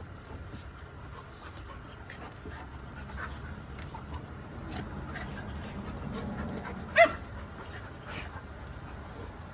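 Golden retriever puppies playing, with light panting and small scuffling sounds. One short, high yelp comes about seven seconds in.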